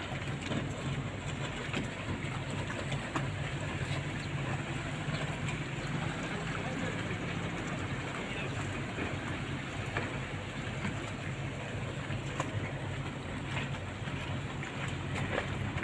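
Steady low drone of motorboat engines over open-air wind and water noise.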